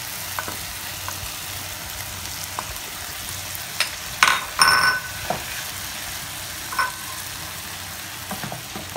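Sliced okra sizzling as it is stir-fried in a non-stick pan, with a wooden spatula scraping and clacking against the pan; the loudest clatter comes about four to five seconds in.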